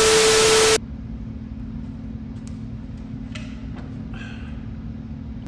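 A loud burst of TV static with a steady beep through it, cutting off suddenly under a second in: a glitching colour-bars transition effect. A steady low hum follows.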